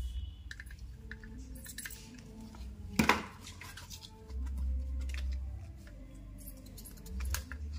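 Small clicks and taps of a soldering iron and circuit board being handled while a wire connector is desoldered from an air-conditioner control board. One sharp click comes about three seconds in, and a low rumble comes and goes.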